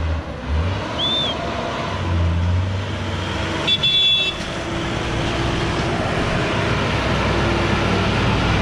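Truck engines running as box trucks pass close by on a mountain road, with a short horn toot about four seconds in as a light refrigerated box truck goes past.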